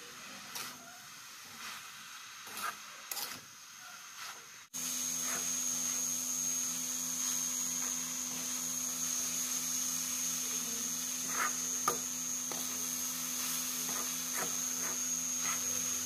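A steel spoon scraping and stirring grated coconut in a metal pan, in soft scrapes and clicks. About five seconds in, a steady hum with a high whine starts abruptly and runs on under the scraping.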